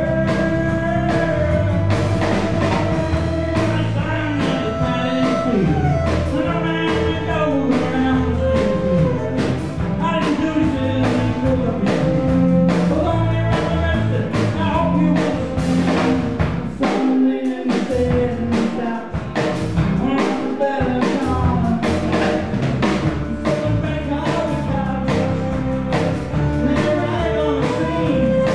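Live folk band playing a song: violin melody over acoustic guitar, bass and a drum kit. The low end drops out briefly twice a little past the middle, then the full band comes back in.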